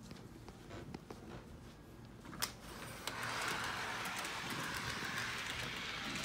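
HO-scale model train: a click about two and a half seconds in, then from about three seconds the small locomotive runs on its track with a steady running noise as power is turned up at the controller.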